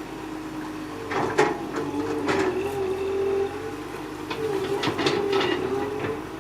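Excavator working: a steady whine that wavers in pitch, with clusters of knocks and clanks about a second in, again around two seconds in, and several more past the middle.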